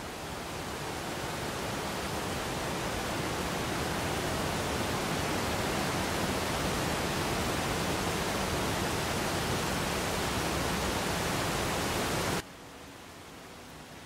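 A steady, even rushing noise that swells over the first few seconds, then cuts off abruptly about twelve seconds in, leaving a fainter hiss.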